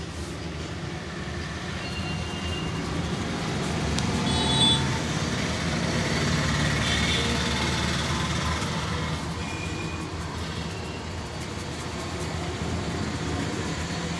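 Road traffic: a motor vehicle's engine hum that swells to its loudest about halfway through and then eases off, as of a heavy vehicle passing.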